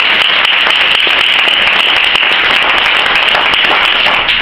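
A roomful of seated guests applauding, many hands clapping steadily.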